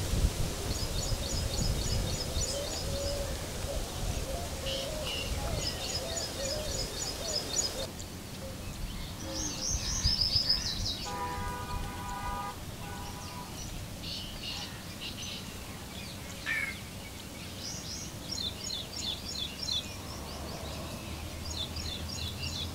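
Birds singing: short, high, rapidly trilled phrases repeated every few seconds, with a lower call of several tones near the middle. A steady hiss with a low rumble runs under the first third and cuts off abruptly.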